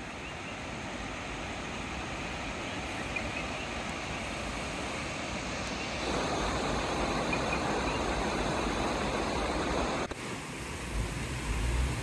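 Steady rushing of a distant waterfall across a forested gorge, a hiss with no pitch that grows louder about halfway through and cuts off abruptly near the end. Low wind rumble on the microphone follows.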